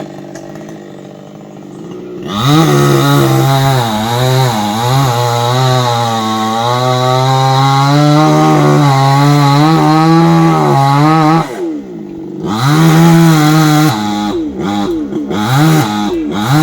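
Two-stroke chainsaw running low, then revved up about two seconds in and cutting into a palm trunk, its pitch sagging and rising under load. It falls off briefly around twelve seconds in and then picks up again with a wavering pitch.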